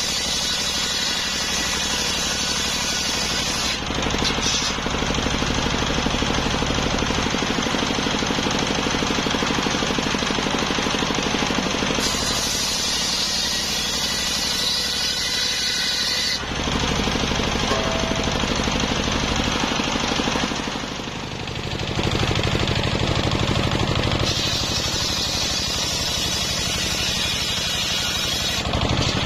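Large belt-driven circular saw sawing a sengon log into boards. The machine runs loud and steady, and a harsher, higher cutting noise comes in over it in three stretches as the blade passes through the wood.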